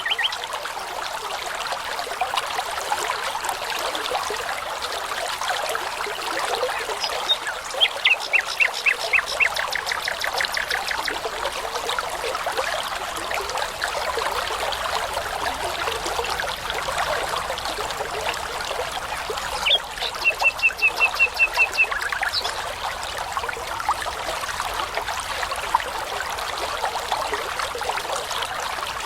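Brook babbling steadily, with a nightingale singing twice over it. The first phrase, starting about seven seconds in, is a run of rapid repeated whistled notes lasting about three seconds. A shorter run of fast repeated notes comes about twenty seconds in.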